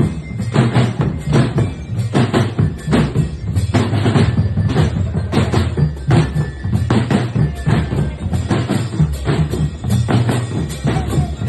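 Marching drum band (drumband) playing a steady, driving beat, with regular sharp drum strikes about twice a second over a constant low drum rumble.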